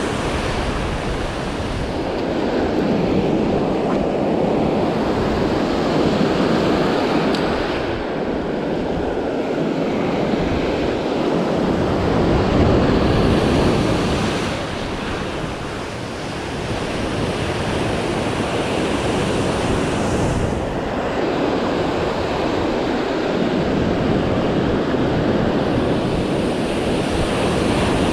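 Surf breaking on a sand beach and washing up the shore, swelling and easing with each set of waves, with wind buffeting the microphone.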